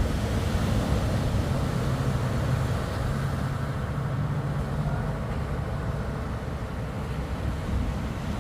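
An engine running steadily over a rough rumble of wind and surf.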